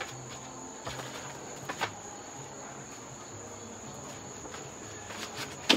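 Steady high-pitched insect drone, with scattered crackles and rustles of plastic trays and food scraps being handled and pulled out by hand; the sharpest crackle comes near the end.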